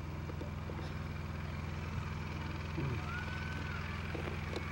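A steady low hum, with a faint high tone that rises, holds and falls about three seconds in.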